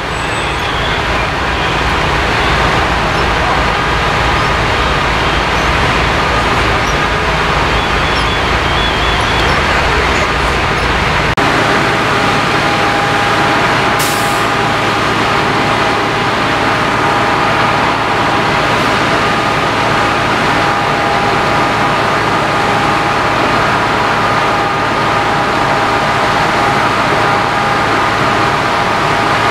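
Fire apparatus at a working fire: the diesel engines and pumps of the fire trucks running steadily, with a steady whine over a constant noisy din. The deep engine rumble drops away about a third of the way through, leaving the whine clearer.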